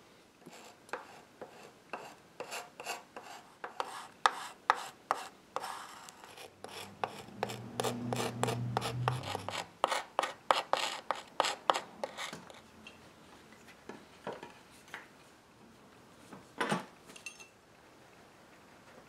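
Hand tool scraping and digging at wood in a run of short, sharp strokes, about two a second, which stop about twelve seconds in. A brief low hum sounds midway, and a single louder scrape or knock comes near the end.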